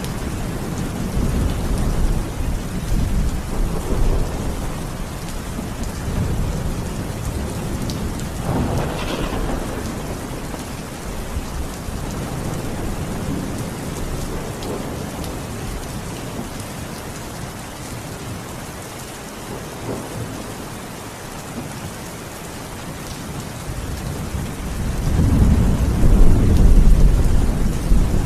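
Steady rain with rolling thunder. A low rumble fades over the first few seconds, and a louder rumble builds near the end.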